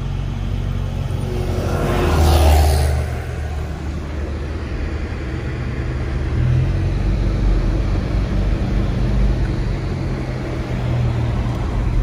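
Steady low rumble of a car's engine and snow tyres heard from inside the cabin while driving on a snow-covered road. There is a brief louder rush about two seconds in.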